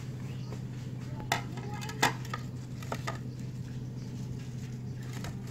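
Dinner plates clinking and knocking on a table as they are handled and set down: a few sharp clinks in the first half, the loudest about two seconds in, over a steady low hum.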